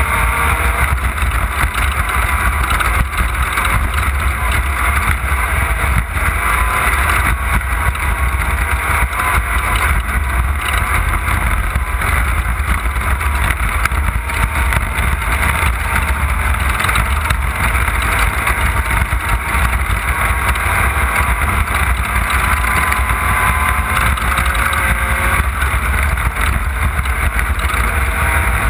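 Off-road race car running at speed on a dirt race course: a loud, steady engine drone over a heavy low rumble, its pitch wavering slightly.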